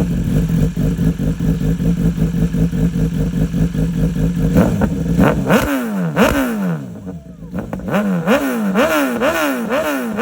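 BMW S1000RR inline-four engine idling steadily just after starting. From about five and a half seconds in it is revved again and again in quick throttle blips, each jumping up in pitch and sinking back.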